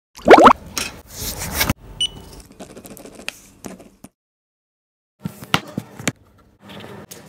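Hand-sanitiser pump pressed, giving a short squirt that rises in pitch, followed by about a second of hiss. After a dead-silent gap, a few sharp clicks come near the end.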